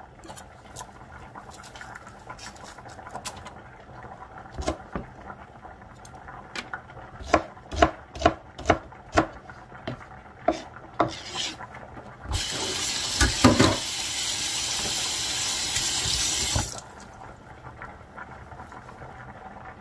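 A run of sharp knocks and clatters of kitchen work, then a water tap running into a sink for about four seconds before it is shut off.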